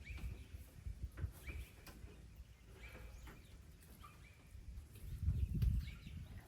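Several short, faint bird calls over low handling noise, with a louder low rumble about five seconds in.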